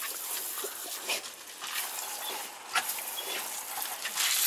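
Oscillating lawn sprinkler spraying water onto gravel with a steady hiss, and a German Shorthaired Pointer making a few short snaps and breath sounds as it bites at the spray. The spray hiss grows louder near the end.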